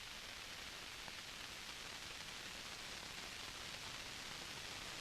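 Steady, even hiss with nothing else in it: the background noise of an old film or tape soundtrack between lines of narration.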